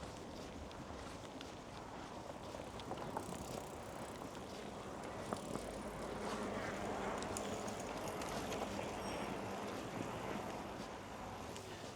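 A vehicle passing slowly over steady outdoor ambience: its sound swells from about halfway through and fades again near the end, with a few small clicks scattered throughout.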